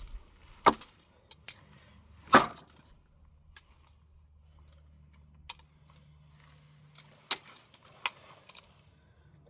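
A cheap plastic hairdryer being smashed apart: a string of sharp, separate knocks and cracks with pauses between them, the loudest about two and a half seconds in.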